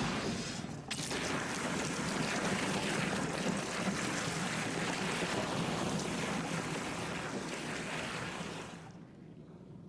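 A loud, steady rushing noise, like wind or surf, that dips briefly just before a second in and cuts off about nine seconds in.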